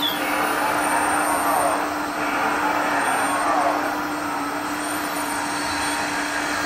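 Hydraulic system of an RC model excavator running: a steady pump hum with a hiss of oil through the valves that swells and sweeps up and down as the grapple lowers and turns.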